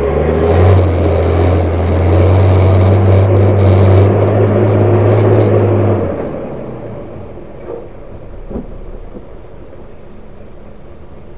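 Hino 500 truck's diesel engine heard from inside the cab, pulling steadily under load, then throttled back about six seconds in to a much quieter rumble, with a couple of light knocks from the truck near the end.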